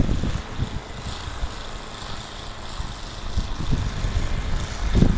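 Wind buffeting the microphone in gusts, strongest at the start and end, over the faint steady hum of an engine running.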